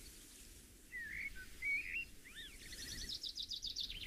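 Birds singing: a few short warbling phrases that rise and fall from about a second in, then a fast, high repeated trill near the end, over a faint steady background hiss.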